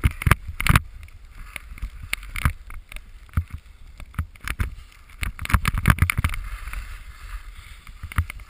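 Skis sliding and scraping over packed snow, with wind rumbling on a helmet-mounted camera's microphone and irregular knocks and bumps.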